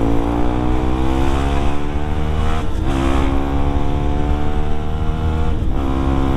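Yamaha WR155R's single-cylinder engine pulling hard under acceleration, its pitch rising steadily and dropping at two upshifts, about two and a half seconds in and again near the end.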